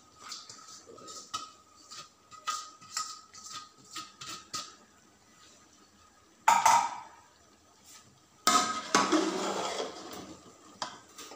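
Aluminium cooking pot on the stove: light crackling ticks, then two loud metallic clanks about two seconds apart, the second followed by a second or so of scraping and rattling against the pot.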